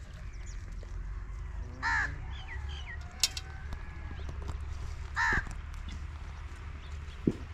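A crow cawing twice, two short harsh calls about three and a half seconds apart, over a steady low rumble, with two sharp clicks in between and near the end.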